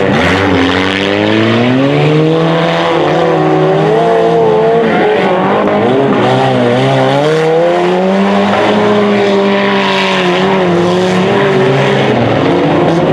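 Engines of several stock front-wheel-drive derby cars revving and easing off as they race through the turns of a dirt autocross track, their pitch rising and falling again and again.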